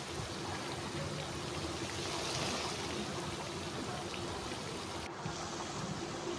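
Langcha deep-frying in hot white oil in a kadai: a steady sizzle and bubbling of the oil.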